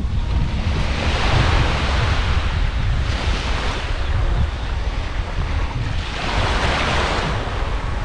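Sea waves washing up on the beach, swelling three times, with wind buffeting the microphone in a constant low rumble.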